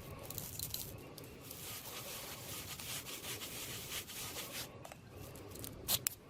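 Furnace flame sensor rod scrubbing against the brush inside a Supco flame sensor cleaner as it is twisted and drawn out, a faint scratchy rubbing, with a couple of sharp clicks near the end.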